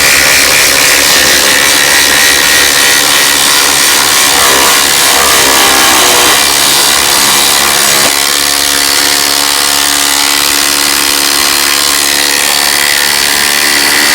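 Two cordless brushless impact drivers, a Hercules 1/4-inch and a DeWalt DCF840, running together and hammering under load in a continuous loud rattle. The sound shifts slightly and gets a little quieter about eight seconds in.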